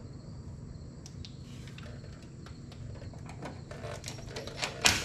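Quiet shop background with a low hum and a faint steady high-pitched whine. A few light clicks come as a cordless drill is handled and its bit set against a fender bolt, then one sharp metal click near the end.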